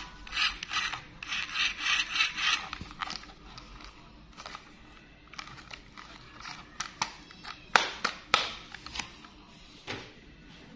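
Plastic toy train being handled in gloved hands: scratchy rubbing and scraping of plastic parts for the first couple of seconds, then quieter handling and several sharp clicks in the second half.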